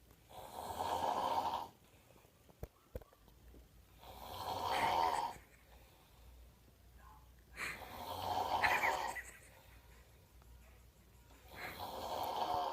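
A person snoring: four loud, rasping snores on the in-breath, about one every four seconds, with quiet breathing between them.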